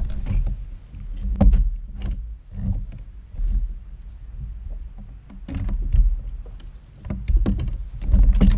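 Irregular knocks, bumps and rubbing on a fishing kayak's hull as the paddler shifts and handles gear, carried through the boat-mounted camera over a low rumble.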